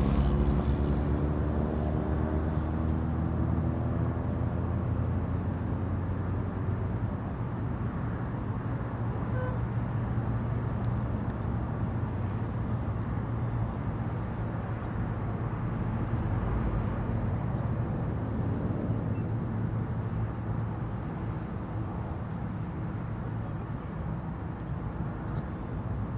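Low, steady hum of a motor vehicle engine running, with a falling tone over the first several seconds, over a constant outdoor noise.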